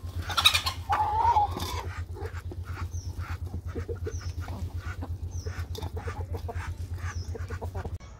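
Flock of chickens feeding from shallow feeder pans, with clucking and a louder squawk about a second in, beaks pecking at the feed, and a steady low pulsing hum underneath. The sound drops off suddenly near the end.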